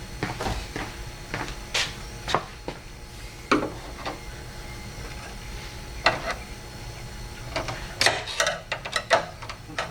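Irregular clicks, taps and light clattering of hard parts being handled and fitted while working on a car door's window regulator, with a cluster of quick clicks near the end.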